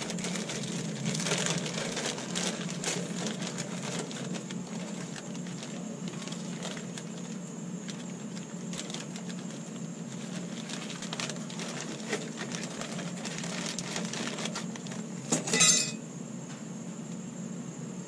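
Clear plastic packaging of a new brake pad kit crinkling and rustling as it is handled, with small clicks of the pads and metal shims inside. There is a brief louder rattle about fifteen and a half seconds in.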